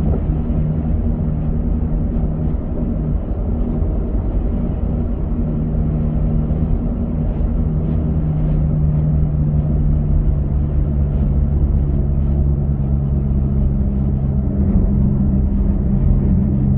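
A car driving at a steady speed on a paved road: a constant low road rumble with a steady low hum that does not change.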